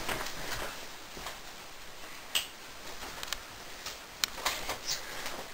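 Faint, scattered clicks and light taps over quiet room tone, with a sharper click about two and a half seconds in.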